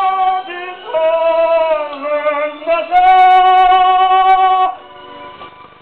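A man singing in a high voice, three phrases of long held notes, the last held nearly two seconds before he stops.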